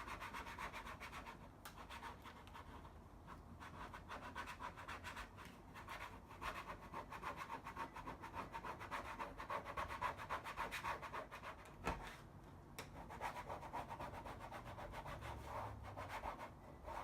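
Plastic credit card rubbed firmly over a vinyl decal's transfer paper on a trailer's metal skin, pressing the decal down from the bottom up: quick, repeated scratchy strokes with a few short pauses.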